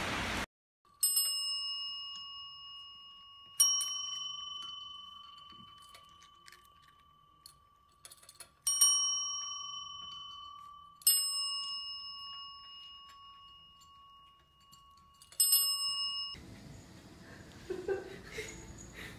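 Chrome desk service bells rung five times, a few seconds apart, each a clear ding that starts sharply and fades slowly.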